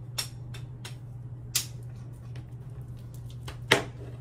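A few light clicks and taps over a steady low hum, with a sharper click about a second and a half in and a louder knock near the end.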